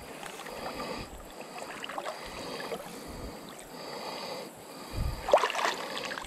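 Water lapping and trickling against a canoe hull on a slow river, with small ticks and a high buzz coming and going. About five seconds in there is a short low knock followed by a quick rustle of handling.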